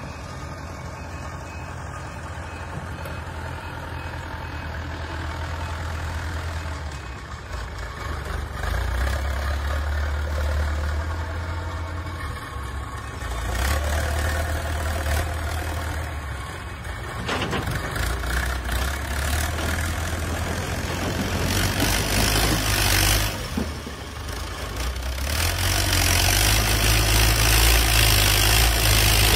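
Backhoe loader's diesel engine running, its revs rising and falling several times as the machine drives and works its front bucket, loudest near the end.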